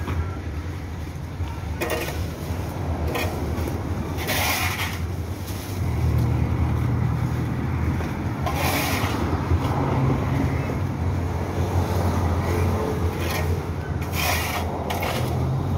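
Low, steady engine noise of street traffic, louder from about six seconds in, with several short scrapes of a metal shovel across the pavement as debris is scooped up.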